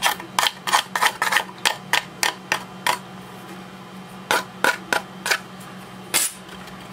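The edge of a metal ruler scraping along the edge of a 3D-printed lithophane, cleaning off leftover brim so that the print fits its stand. About a dozen quick short scrapes, roughly four a second, over the first three seconds, then a pause and a handful more spaced-out strokes.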